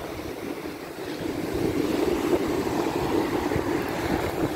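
Sea surf breaking and washing up a sand beach, a steady rushing that swells louder about a second and a half in as a wave comes in, with wind buffeting the microphone.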